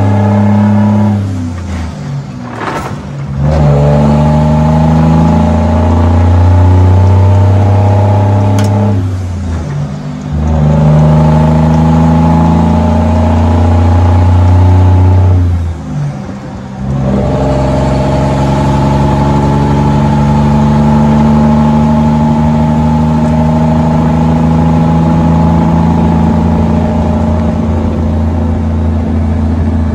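Cummins L10 diesel engine, loaded to 36,500 lb gross, running through 6-inch straight-pipe stacks as it pulls through the gears. The exhaust note breaks off briefly for three shifts, about 2, 10 and 16 seconds in, then holds a long steady pull with a little turbo noise.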